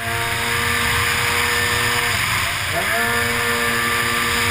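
Racing runabout jet ski engine at high revs: the pitch climbs at the start and holds, drops as the throttle eases off just after two seconds, then climbs back and holds again. Water spray and wind noise run underneath.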